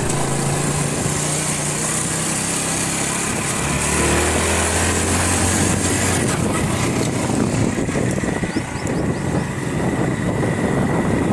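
A motor vehicle's engine running steadily on the move, with a constant hiss of road and wind noise; the engine note drops and steadies about four seconds in.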